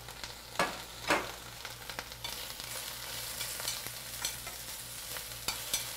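Spinach sizzling in oil as it wilts in a stainless steel frying pan, turned with metal tongs that clink against the pan now and then, with two louder clinks about a second in.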